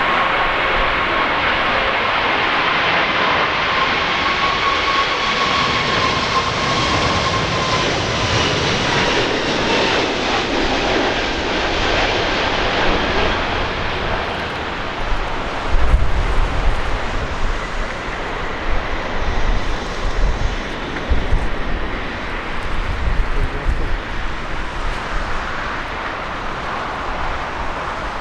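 Jet airliner engines passing close overhead on final approach, a loud rush with a whine that sags slightly in pitch as the aircraft goes by, fading about halfway through. Strong wind then buffets the microphone in uneven low gusts.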